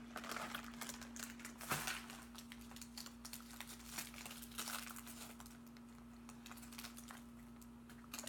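Candy wrapper crinkling in the hands in irregular bursts, with a sharper crackle a little under two seconds in.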